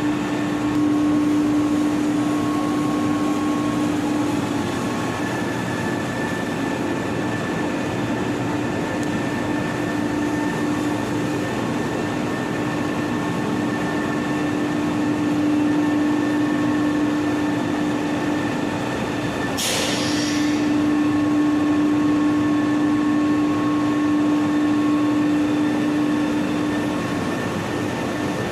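Electric floor-cleaning machine running with a steady motor hum and the rushing noise of its scrubbing. A single sharp click about twenty seconds in.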